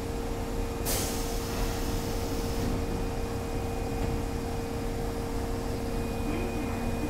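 Osaka subway train standing at an underground platform, with a steady hum throughout. About a second in comes a burst of air hissing that lasts under two seconds, and near the end a faint high steady tone joins the hum.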